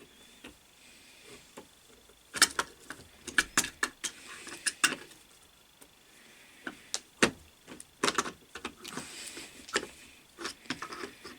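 Irregular sharp metal clinks and rattles, in two busy clusters, as the steel parts of a lathe fixed steady (its fingers and threaded adjusters) are handled and knocked together.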